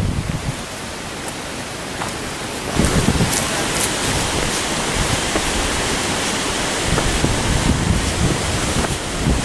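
Wind buffeting the microphone, with low rumbling gusts over a steady rushing hiss that gets louder about three seconds in.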